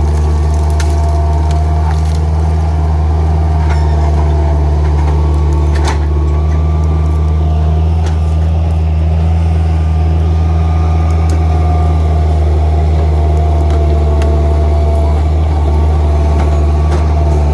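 Skid steer engine running steadily at a constant speed, a deep hum with a steady, slightly wavering whine above it and a few light clicks.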